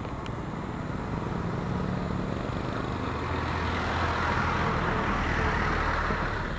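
A motor vehicle running close by: a steady low engine hum with road and tyre noise that swells and is loudest a little past the middle.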